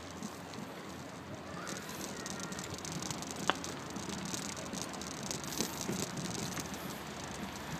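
Bicycle rolling along a road, with frequent small rattles and clicks over a steady rush of tyre and wind noise, and one sharper click about three and a half seconds in.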